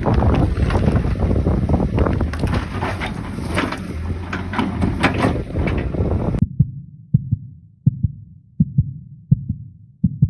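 Heavy machinery running, with a low rumble and repeated sharp metal knocks and clanks. About six seconds in it cuts off suddenly and a run of deep, evenly spaced thumps follows, about one every 0.7 s.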